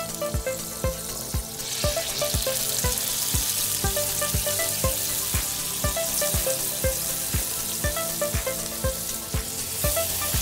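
Butter and filet mignon steaks sizzling on the hot steel top of a 17-inch Blackstone griddle, the sizzle swelling about a second and a half in as the steaks are seared. Background music with a steady beat of about two strokes a second plays over it.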